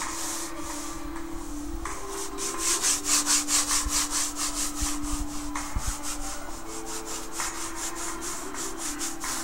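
A hand rubbing back and forth over a textured, painted car-shaped surface: quick scratchy strokes, several a second, starting about two seconds in.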